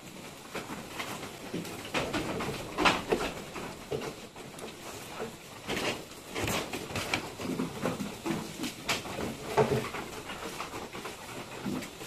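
Goats in a wooden pen: a few short calls and scattered knocks and shuffling.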